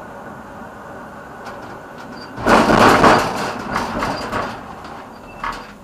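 Tram rolling along street track, with a quieter steady running noise that gives way, about two and a half seconds in, to a loud, rattling wheel-on-rail noise lasting about two seconds before easing off.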